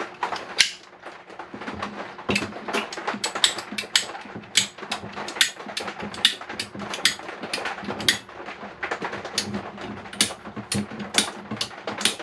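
Irregular clicks, rattles and knocks of plumbing fittings and a braided supply hose being handled and fitted inside a bathroom sink cabinet, a few sharp clicks a second.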